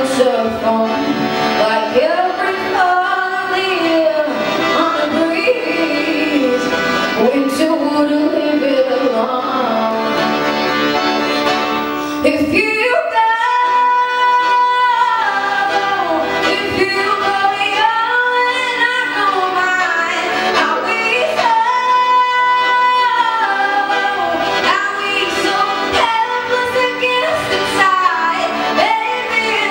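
A woman singing live with acoustic guitar and accordion accompaniment. She holds long notes about halfway through and again a little later.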